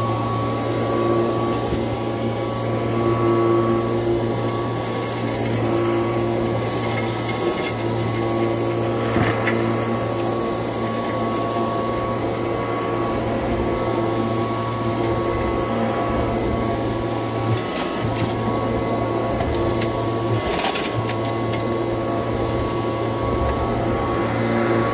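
1986 Kirby Heritage II upright vacuum running steadily: an even motor hum with a fixed whine over it, and scattered short crackles as the crunchy debris on the rug is picked up.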